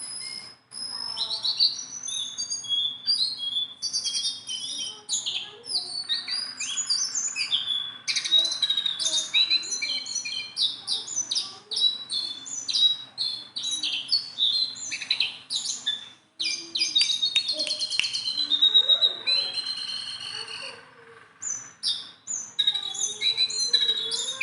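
A jongkangan songbird singing on and on: a fast, varied run of chirps, trills and whistled slurs, with brief breaks twice.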